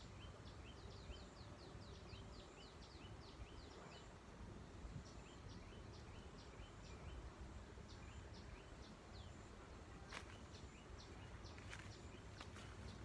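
Faint outdoor background with a small bird calling: two runs of short, falling, high notes, about three or four a second. A few sharp crackles follow near the end.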